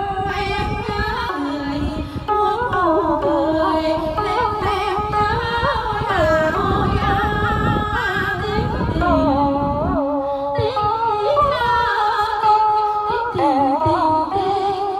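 A woman singing a Vietnamese quan họ folk song into a handheld microphone, with long held notes that waver and bend in ornaments.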